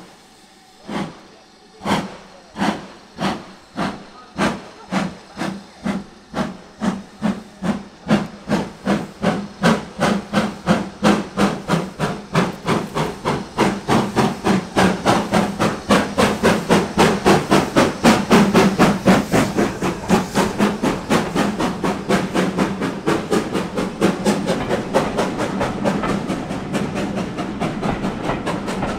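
Steam locomotive pulling away with a train: its exhaust beats start slow, about one a second, and quicken steadily to a rapid chuff, getting louder as the engine draws near and passes.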